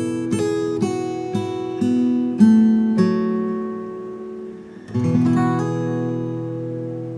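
Acoustic guitar playing slow, relaxing music: plucked notes and chords that are left to ring, fading out after about three seconds before a new chord is struck about five seconds in and rings on.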